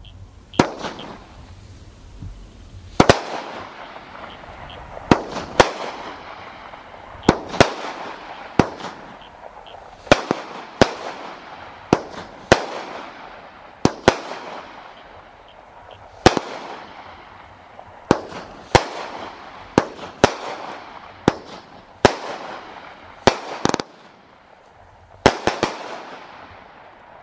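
200-gram consumer repeater cake (After Burner) firing aerial shots one after another: a sharp bang every one to two seconds, about twenty in all, each fading out over about a second.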